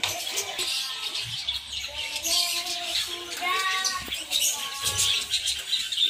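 Flock of budgerigars chattering, many short high chirps and warbles overlapping.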